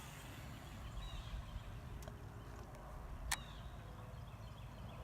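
Quiet lakeside ambience: a steady low rumble of wind on the microphone, with a single sharp click a little over three seconds in.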